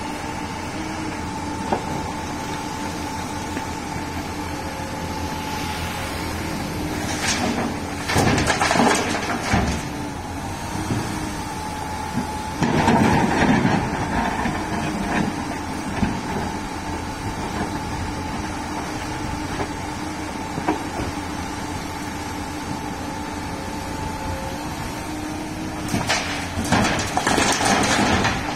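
Komatsu PC290LC hydraulic excavator's diesel engine running steadily with a constant whine, broken three times by louder scraping and clattering as the bucket digs into soil and concrete rubble and dumps a load into a dump truck's bed near the end.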